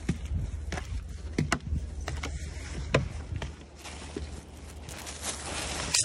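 Footsteps climbing snow-dusted wooden porch stairs, with several irregular knocks on the treads in the first few seconds over a low rumble on the microphone. A rustling hiss rises near the end.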